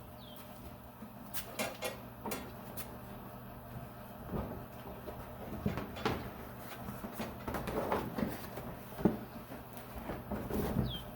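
Scattered soft knocks, clicks and rustles as a protective spark cover is handled and fitted around a clamped support tube on a Jeep, over a steady low hum.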